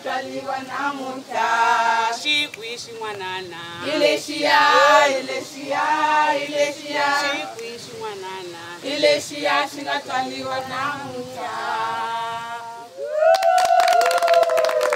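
A group of voices, mostly women's, singing a song together in short repeated phrases. Near the end the singing gives way to rapid hand clapping under one long held note that slides down in pitch.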